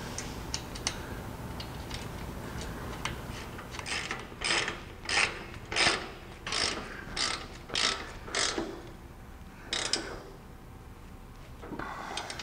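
Socket ratchet worked in short strokes on a sway-bar mounting-block bolt. A few light clicks come first, then from about four seconds in a regular run of about eight ratcheting strokes, roughly one and a half a second, and one more after a short pause.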